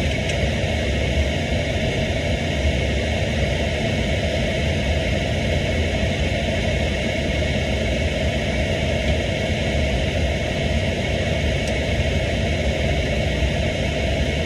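Steady cockpit noise of a Boeing 737-800 in flight on approach: an even rush of air with a low hum underneath.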